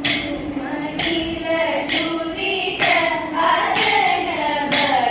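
A voice singing a slow, gliding vocal line for the dancers, over sharp strikes that keep time at an even beat of about one a second.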